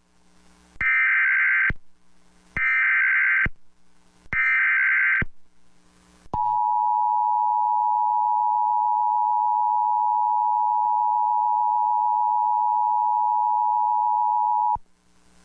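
Emergency Alert System tones on a TV broadcast: three short bursts of the screeching digital SAME header, each just under a second long, then the two-tone attention signal held steady for about eight seconds before cutting off. It announces a National Weather Service severe thunderstorm warning.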